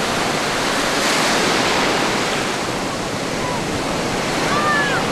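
Ocean surf breaking and washing through the shallows: a steady, even noise of white water.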